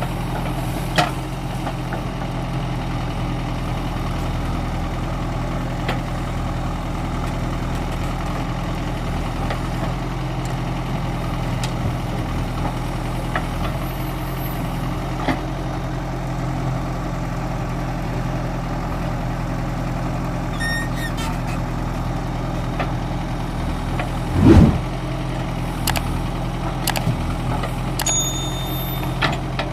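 Diesel engine of a construction machine running steadily at idle, with scattered light clanks and one heavier thump about three-quarters of the way through.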